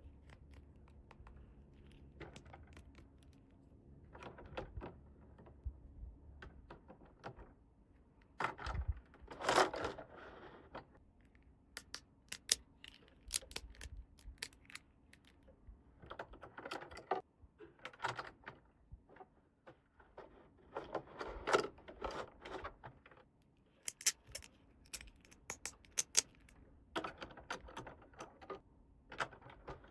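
Small plastic toy pieces being handled and set down, making irregular clicks, taps and short rustles, in several clusters with quieter gaps between.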